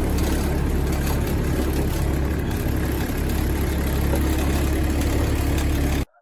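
Engine idling steadily, a low even drone that cuts off suddenly near the end.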